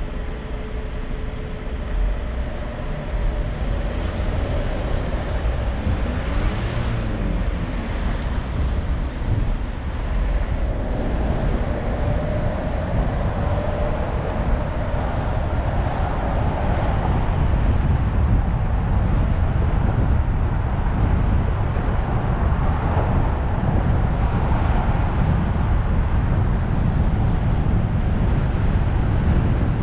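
A car driving on city roads: steady engine and tyre noise with a low rumble, getting a little louder in the second half.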